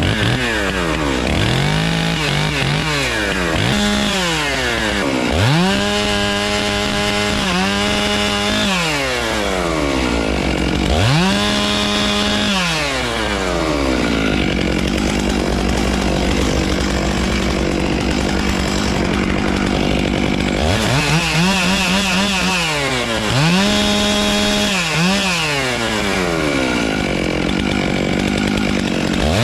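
Two-stroke chainsaw repeatedly revved up to full speed and dropping back to idle in between. Its pitch sags briefly during the high runs, as when the chain bites into wood.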